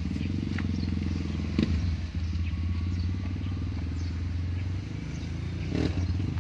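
An engine running steadily with a low, fast-pulsing rumble, plus a couple of light knocks.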